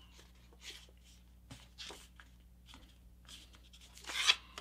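Soft rustling and creasing of a sheet of letter-size paper as a paper airplane's wing is folded down along its crease by hand. There are a few brief faint swishes, then a louder brush of paper being pressed flat near the end.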